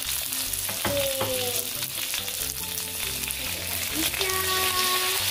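Fried egg sizzling in hot oil in a wok, with soy sauce poured over it near the end.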